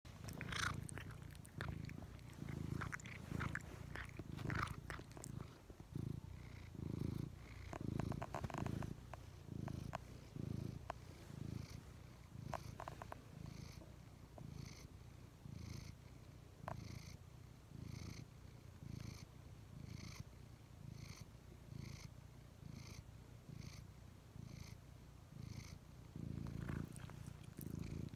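Elderly ginger-and-white domestic cat purring close to the microphone, a steady low purr that swells and fades with each breath in and out. A few soft clicks and rustles come in the first half.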